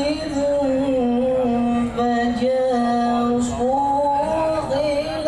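A man reciting the Quran in a drawn-out melodic style (tilawah), holding high sustained notes with gliding, ornamented turns, with a brief break about two seconds in.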